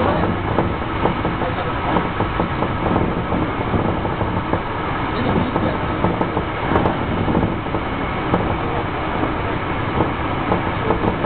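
Running sound of a Hankyu 9300 series electric train at speed, heard inside the front car: a steady rumble of wheels on rail, broken by frequent short clicks.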